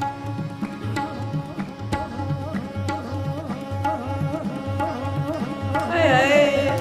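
Qawwali music: tabla keeping a steady beat under a harmonium drone and a man's singing. Near the end the lead voice comes in strongly with a fast, wavering vocal run.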